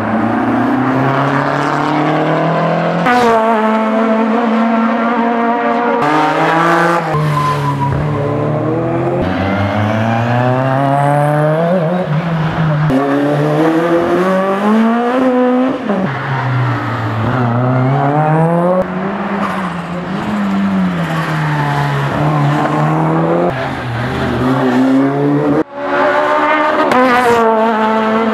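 Several classic competition cars driven hard past the microphone, one after another. Their engines rev up and drop back again and again as they accelerate and shift gears, with a few abrupt changes from one car to the next.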